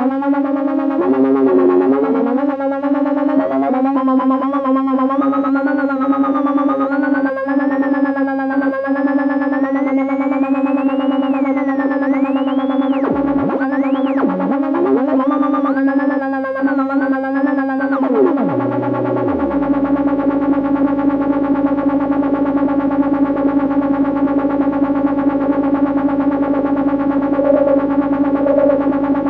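Negistor cracklebox DIY drone synth run through a dual auto-filter. A steady, buzzy drone carries gliding, warbling tones that sweep up and down and stutter over it for most of the first two-thirds. A low tone then steps downward, and the drone settles into a steady hum.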